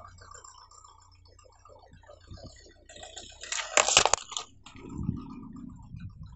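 Plastic tub of water beads crushed under a slowly rolling car tyre: a loud crackling crunch about three and a half seconds in, ending in a sharp snap, then a duller thump about a second later.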